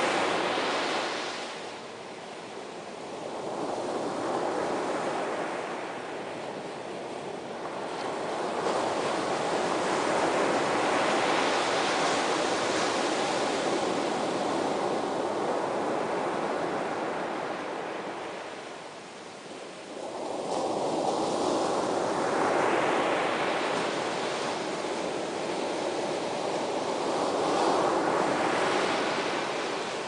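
Ocean surf breaking and washing in, swelling and falling back in slow surges every several seconds. The deepest lulls come about two seconds in and again about two-thirds of the way through.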